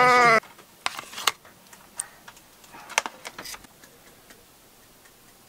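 A baby's sustained cry, cut off abruptly at the very start, then a scattered run of light clicks and taps over about four seconds.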